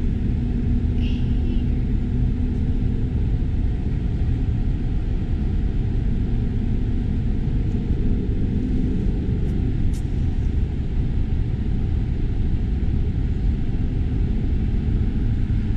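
Steady low rumble of road and engine noise inside the cabin of a car driving at highway speed.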